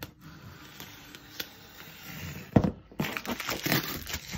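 Cardboard shipping box being opened with a pocket knife: quiet scraping at first, a sharp knock about two and a half seconds in, then packing tape and cardboard flaps tearing and crackling as the box is pulled open.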